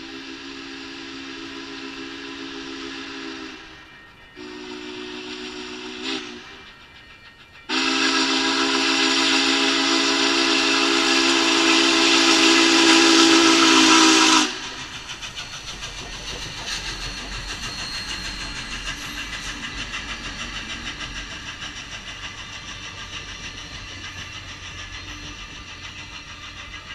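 Union Pacific 844, a 4-8-4 steam locomotive, sounding its chime steam whistle for a grade crossing: three blasts, the last and loudest about seven seconds long, cutting off as the engine reaches the crossing. Then the locomotive and its passenger cars roll past with a steady rumble and rhythmic wheel clatter.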